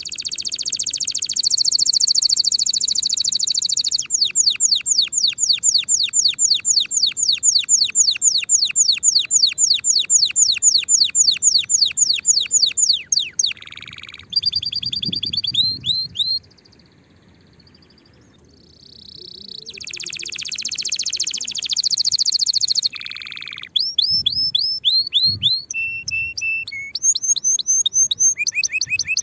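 Domestic canary singing a string of trills: a buzzy trill, then a long fast roll of repeated sweeping notes, a short break in the middle, then changing short trilled phrases.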